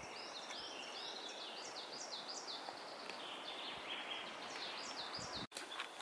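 A songbird singing a run of repeated high, hooked notes, about three a second, over a steady rustle of wind in the trees. The sound cuts off abruptly shortly before the end.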